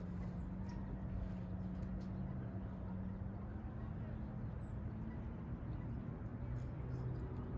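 Outdoor ambience: a steady low hum over a constant low rumble, with a few faint high chirps.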